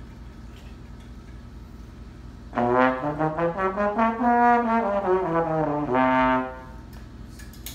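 A brass instrument plays one short melodic phrase, rising and then falling in pitch and ending on a held note. It starts about two and a half seconds in, lasts about four seconds, and low room hum surrounds it.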